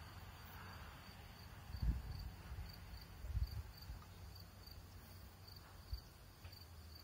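Faint field crickets chirping steadily at about two chirps a second, with a few soft low thumps on the phone's microphone, the strongest about two seconds in.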